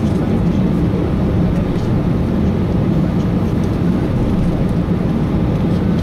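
Airbus airliner's jet engines and airframe running with a steady low rumble, heard from inside the passenger cabin while the aircraft taxis.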